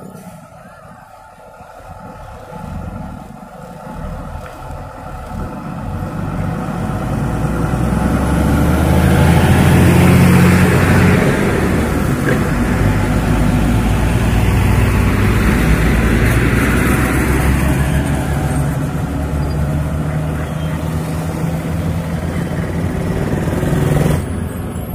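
Trucks and a bus driving past close on a two-lane road: diesel engines running under a rushing tyre noise. The sound swells to its loudest about ten seconds in as they go by, stays loud, then eases, and drops off sharply near the end.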